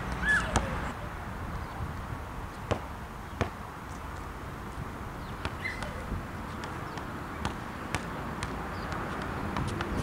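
Basketball bouncing on an asphalt court, irregular single bounces that come closer together in the second half, over low wind rumble on the microphone.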